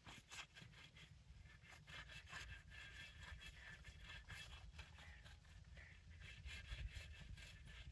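Faint, repeated rubbing strokes of a cotton wad spreading oil over a new clay karahi, seasoning the pot before its first use, over a low steady rumble.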